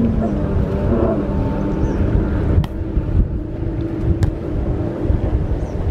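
Wind buffeting the microphone in a steady low rumble, with faint voices of players in the first second. Two sharp slaps, about two and a half and four seconds in, fit a volleyball being struck.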